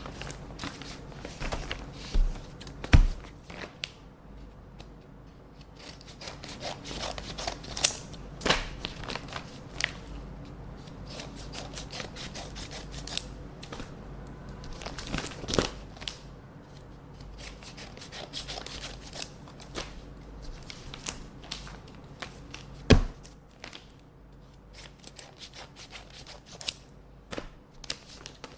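Scissors snipping through paper envelopes in short runs of cuts, with paper rustling and handling between them. Two dull thumps stand out, one near the start and one late on.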